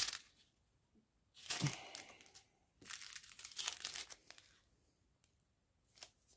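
Strip of small plastic packets of diamond-painting drills crinkling as it is handled, in a few short bursts with quiet pauses between, and a small tick near the end.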